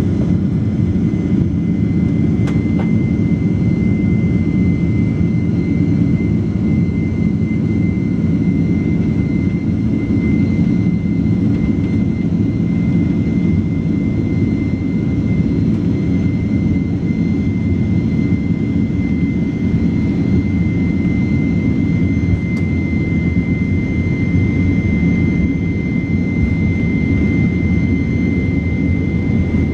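Boeing 767-400's GE CF6 jet engines at high thrust, heard from inside the cabin: a steady high fan whine over a deep, even rumble. The whine has just risen to pitch as the engines spool up, and the airliner accelerates on its takeoff roll.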